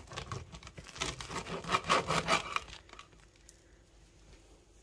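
A knife sawing back and forth through a crusty home-baked loaf onto a wooden cutting board, in quick strokes that stop about two and a half seconds in as the slice comes free.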